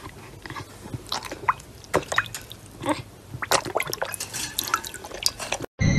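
Water splashing and dripping in a pet bowl as a dog dunks its muzzle and bites at a toy on the bottom. The splashes come irregularly and stop suddenly near the end.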